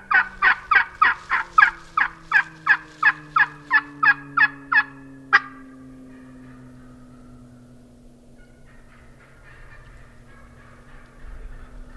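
A long run of turkey yelps, about fifteen evenly spaced notes at roughly three a second, loud and close, ending about five seconds in. A faint low drone sinks slowly in pitch underneath.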